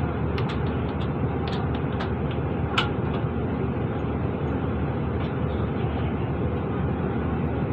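Interior of a Mercedes-Benz Citaro diesel bus with the engine idling steadily while the bus stands still. A few short sharp clicks sound in the first three seconds, the loudest about three seconds in.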